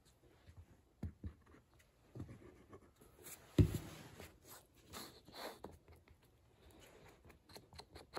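Small scraping and tapping sounds as wood glue is squeezed onto mitered pine frame pieces on a workbench and the pieces are handled. A single thump about three and a half seconds in is the loudest sound, as the glue bottle is set down on the bench.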